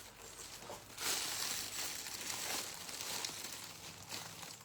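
Rustling and crinkling of packaging as unboxed items are handled, starting about a second in.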